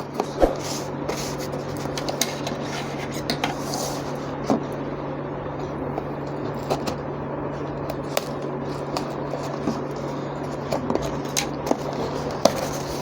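Packaging of a step drill bit set being handled and opened: continual rustling and scraping with many small clicks and knocks, over a steady low hum.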